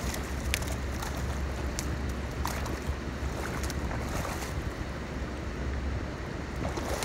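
Water splashing in short bursts as a hooked freshwater drum thrashes at the surface while it is reeled in and landed, mostly in the first four seconds. A steady rumble of wind on the microphone runs underneath.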